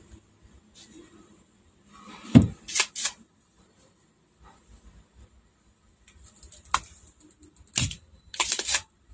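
Spring-loaded desoldering pump firing with a sharp snap, twice: about two and a half seconds in and again near the end, each followed by short scraping hisses.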